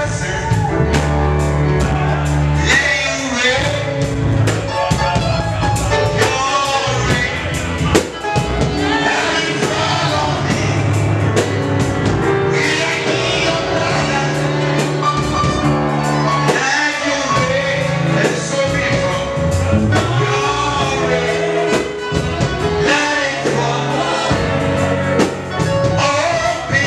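Live gospel worship music: a lead singer on a microphone with backing singers, over a drum kit and a bass line.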